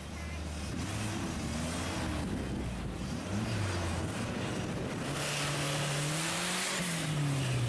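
Off-road tube-chassis crawler buggy's engine revving up and down as it climbs a steep dirt bank. It grows louder from about five seconds in, with a long rising rev that then falls away.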